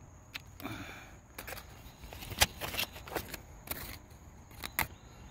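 A run of dry crackles and rustles, about a dozen sharp ones spread irregularly, the loudest about two and a half seconds in: dry leaf litter and pine needles being disturbed underfoot.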